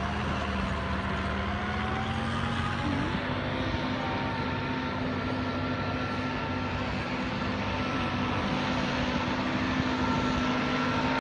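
An engine running steadily, its pitch rising slightly in the first couple of seconds and then holding.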